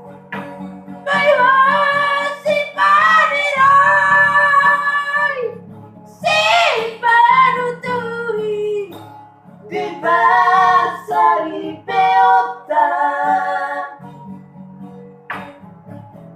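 A singer in a high voice, accompanied by strummed acoustic guitar. There are three long sung phrases with held notes and wide slides in pitch, one sweeping sharply up and back down, and the guitar carries on alone at the start and end.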